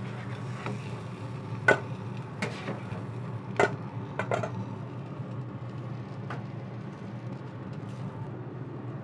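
Metal spatulas scraping cooked spinach off a steel griddle top and clinking against a stainless steel mixing bowl: a handful of sharp metallic clinks over a steady low hum.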